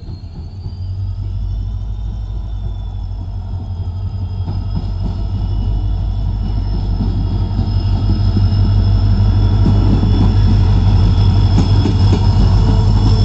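EMD diesel locomotive's engine growing steadily louder as the train approaches, a deep low drone with a thin, high steady whine above it.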